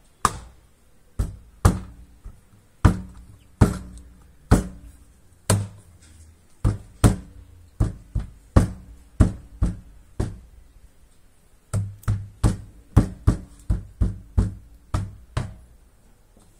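A hand knocking a door trim strip onto its new clips along a car's driver's door. There are about two dozen sharp knocks at an uneven pace, each with a short low ring from the door panel. The knocks pause briefly past the middle, then come faster.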